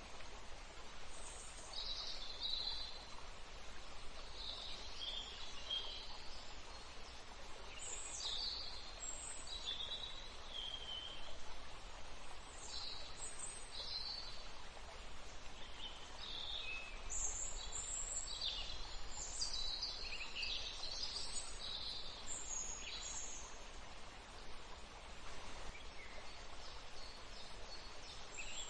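Wild songbirds chirping and calling, many short high chirps from more than one bird, over a steady background hiss; busiest about two-thirds of the way through.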